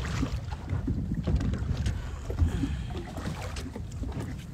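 Wind buffeting the microphone over water slopping and splashing against the side of a small boat at sea, in irregular small splashes.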